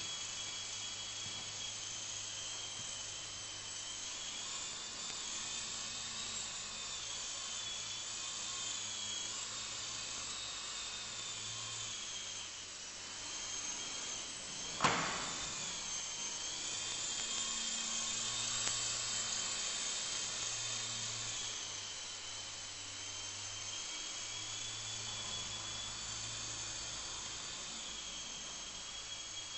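Esky Big Lama coaxial RC helicopter in flight: its small electric motors and rotors give a steady high whine whose pitch wavers up and down with the throttle. About halfway through, a single sharp knock is the loudest sound.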